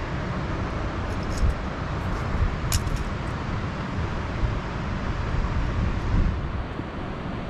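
Wind rumbling on the microphone over a steady rush of river water, with a few faint clicks.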